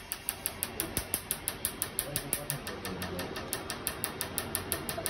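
Tattoo-removal laser firing rapid pulses on tattooed skin: a steady run of sharp snaps, about six a second.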